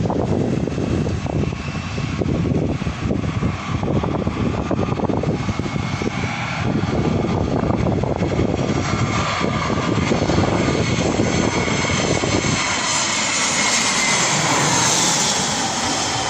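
Jet airliner passing low overhead: the engine noise builds to a high whine that is loudest near the end, and its pitch drops as the plane goes past. Gusts of wind buffet the microphone in the first half.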